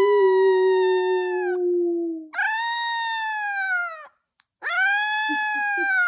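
Young Australian Shepherd puppy howling: three high, drawn-out howls with short breaks between them, each sliding down in pitch as it ends. The first howl rides over a deeper, steady howl that stops about two seconds in.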